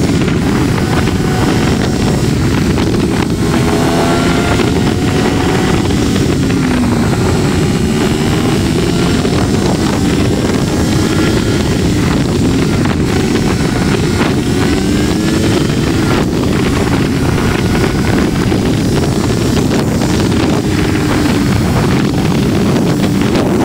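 Loud wind noise on the microphone over a 2023 Triumph Tiger 1200 Rally Pro's three-cylinder engine running at road speed, its pitch rising and falling repeatedly with the throttle.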